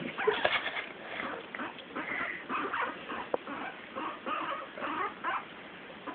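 Pet guinea pig making a string of short squeaks and chirps, several a second.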